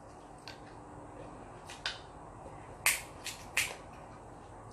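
Sharp cracks and clicks of snow crab leg shell being broken apart by hand: a few faint clicks, then three louder cracks about three seconds in.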